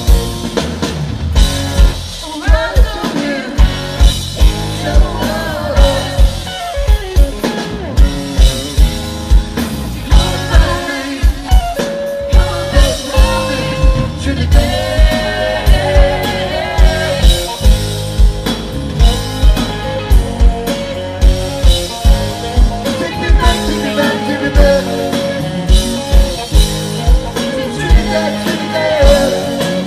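Live rock band playing through a PA: a steady drumbeat of about two kicks a second, electric guitars, bass and a singer's lead vocal.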